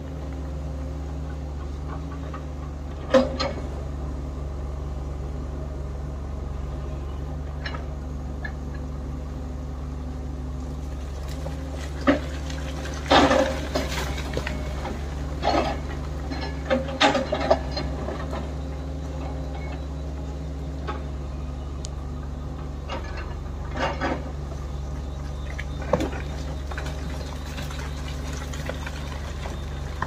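Diesel engines of a JCB tracked excavator and a JCB backhoe loader running steadily while digging. Scattered sharp clanks and knocks come from the buckets striking rock and soil, with a busy cluster of them around the middle.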